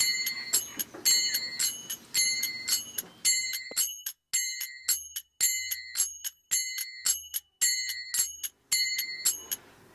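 Background music: a quick, repeating figure of short, high, bell-like struck notes with clicks between them, about two notes a second.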